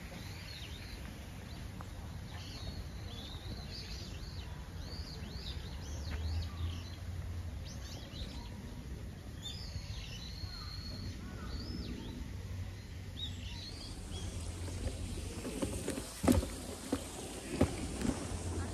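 Small birds calling with many short chirps and whistles over a low steady outdoor rumble; near the end a few sharp knocks of footsteps on the path.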